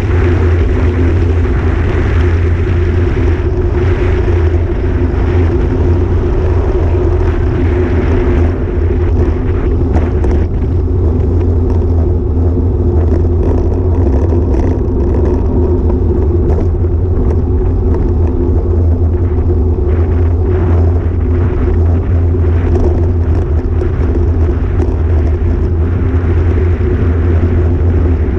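Steady wind rumble on a bike-mounted action camera's microphone together with road noise from a road bike being ridden, with scattered light clicks from about nine seconds in.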